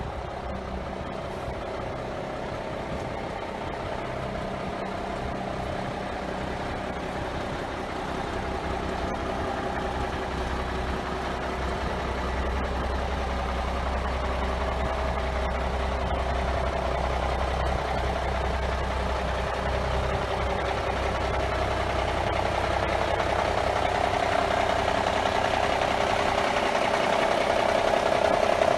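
M936 6x6 military wrecker truck's diesel engine idling steadily, growing louder toward the end.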